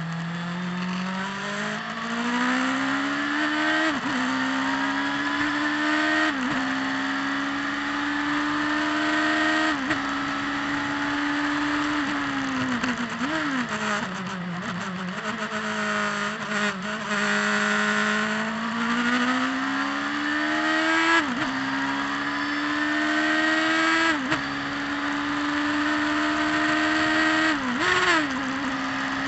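Turbocharged Saker sports car's engine heard from on board under hard acceleration, rising in pitch through the gears with three quick upshifts. It falls away as the car brakes and downshifts for a corner about halfway through, then climbs again through three more upshifts.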